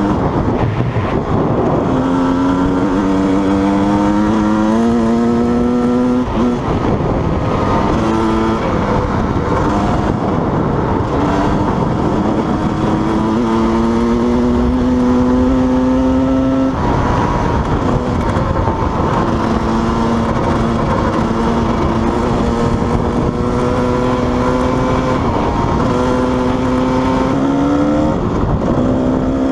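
Kawasaki KDX220 two-stroke single-cylinder dirt bike engine pulling hard at speed, its pitch climbing steadily and then dropping sharply at each upshift, several times over.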